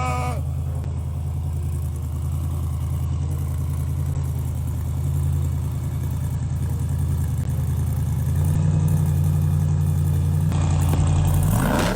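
Car engine idling with a deep, steady rumble. It grows a little louder about two-thirds of the way through and rises with a rev near the end.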